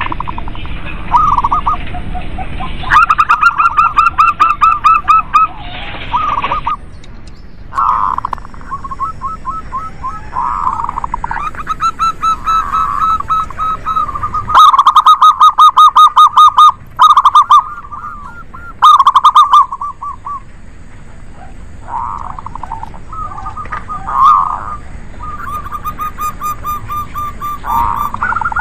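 Zebra doves singing: loud phrases of fast, stuttering trilled coos, one after another, with short breaks between phrases.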